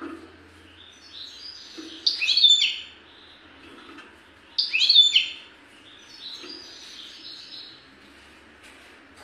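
Caged European goldfinch singing: soft twittering broken by two loud, sharp phrases of quick sweeping notes, about two and a half seconds apart.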